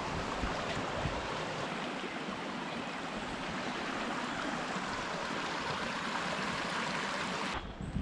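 Shallow mountain stream flowing over gravel and stones: a steady, even rush of water that cuts off abruptly near the end.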